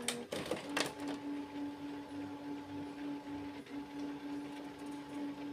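Canon Maxify MB2340 inkjet printer's internal mechanism running with a steady hum, after a few clicks in the first second.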